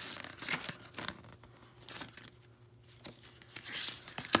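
Rummaging through packaging and small parts: irregular rustling and crinkling with scattered light clicks, and one sharp click near the end.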